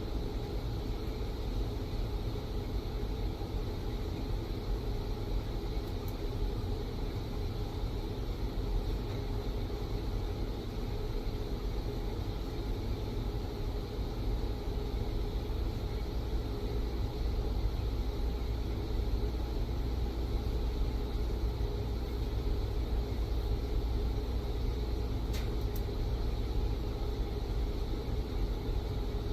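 TIG welding rig running steadily through a weld: a constant low hum with an even hiss over it, and a couple of faint ticks.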